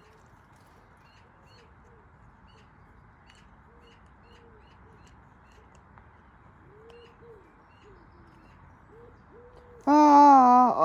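Faint, soft bird calls, short rising-and-falling coos or hoots repeated at irregular intervals over a quiet background. Near the end a loud, held, pitched call or voice cuts in for about a second.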